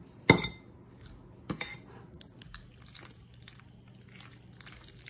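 Fork mixing crumbled feta cheese and eggs in a bowl: soft scraping and squishing, with two sharp clinks of the fork against the bowl, the louder about a third of a second in and another about a second and a half in.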